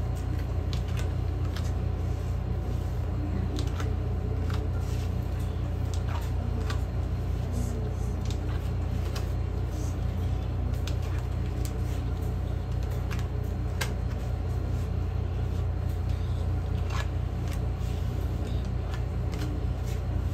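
Tarot cards being picked one at a time from a deck fanned out on a cloth, giving scattered light clicks and slides. A steady low hum runs under them.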